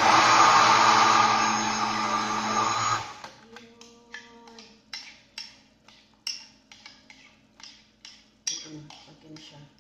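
Countertop electric blender running on a thick cream-and-Oreo mixture, stopping abruptly about three seconds in. This is followed by a string of short sharp clicks and taps.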